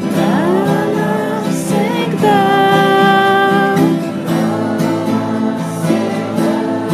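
A band playing at rehearsal: strummed acoustic guitar over a steady low accompaniment, with a sung or bent melody line that glides early on and holds one long note from about two to four seconds in.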